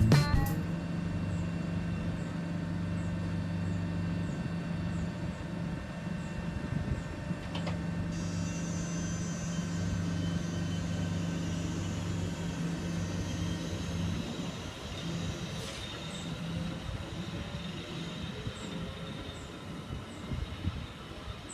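Electric regional train running on the line, with a steady low hum. A high whine joins it about a third of the way in, and the sound eases toward the end.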